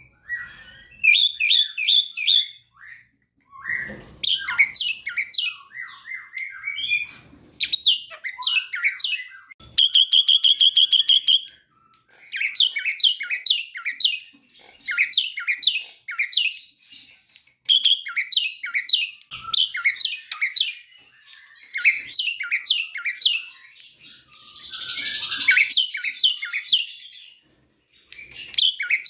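Javan myna singing a varied, chattering song: runs of quick whistled notes, mostly sliding downward, broken by short pauses. A fast even trill comes about ten seconds in, and a harsher burst near the end.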